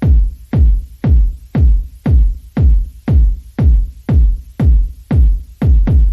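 Background electronic music with a heavy kick drum beating steadily about twice a second.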